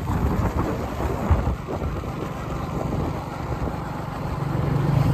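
A vehicle on the move: a low engine hum under rumbling road and wind noise. The engine note steadies and grows a little louder near the end.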